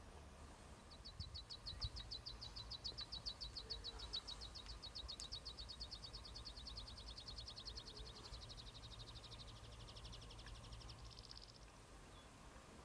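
A high, rapid, evenly repeated trill of chirps, about ten a second, starting about a second in and running for about ten seconds before turning lower and hoarser and stopping. A low rumble runs underneath.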